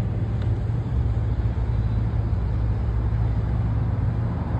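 Steady low engine rumble of road traffic with an even wash of road noise.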